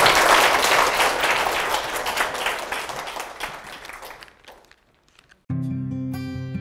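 Audience applause, dying away over about four seconds. After a moment of silence, plucked guitar music begins about five and a half seconds in.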